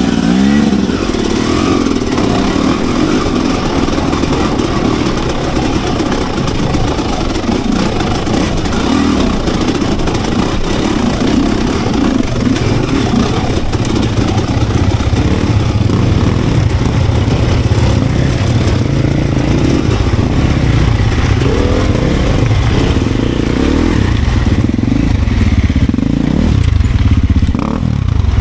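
Enduro motorcycle engine running and revving up and down, its pitch rising and falling again and again, with clattering over rough ground.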